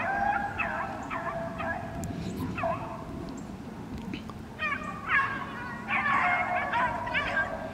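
A pack of beagles baying, the sign of hounds running a rabbit on scent. A few scattered calls come first, then several dogs give voice together from about halfway through.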